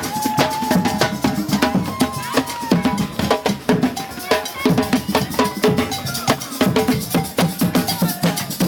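Percussion-heavy music: drums and other struck percussion playing a fast, busy rhythm, with short pitched notes among the beats.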